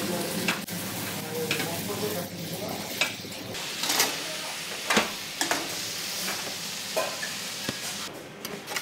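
Food sizzling in a hot pan while a utensil stirs it, with sharp knocks of the utensil against the pan about half a dozen times.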